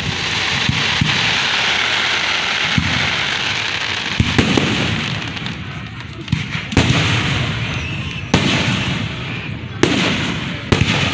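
Fireworks display going off close by: a dense crackling hiss for the first few seconds, then about six sharp booms, the first two together about four seconds in and the rest every one to two seconds.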